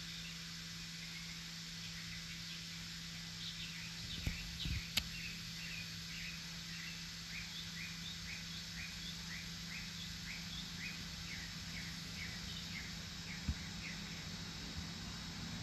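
A bird chirping over and over, short notes at about two a second, over a steady low hum and faint background noise, with a few sharp clicks about four to five seconds in.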